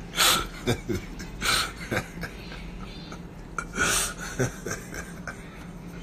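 A man laughing in breathy bursts, the strongest three near the start, about a second and a half in, and about four seconds in.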